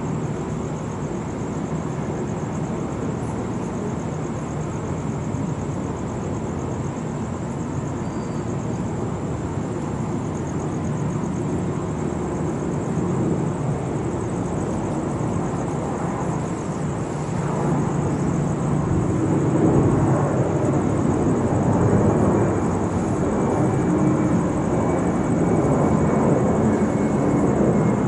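Airplane passing overhead: a steady engine rumble that grows louder in the second half, with a faint falling whine near the end.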